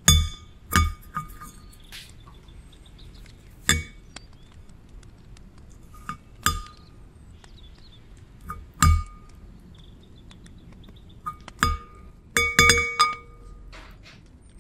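Metal spoon clinking against a glass mixing bowl, each tap leaving a short glassy ring. About seven separate clinks, then a quick run of them about twelve seconds in.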